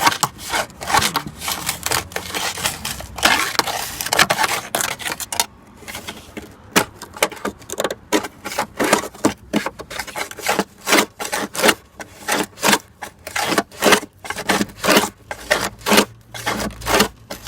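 Hand tool tapping and scraping on the rusted sheet metal of a car's rocker panel, in quick irregular sharp strikes of about two to three a second, with a short stretch of scraping near the start.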